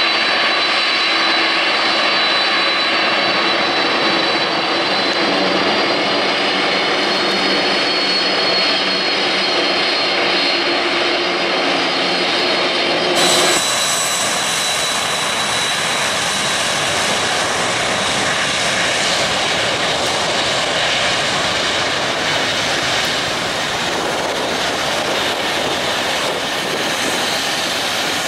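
A Boeing 747-400's four turbofan engines running with a steady high whine and lower engine tones as the jet taxis. About 13 seconds in, the sound cuts abruptly to a broader, rushing jet roar.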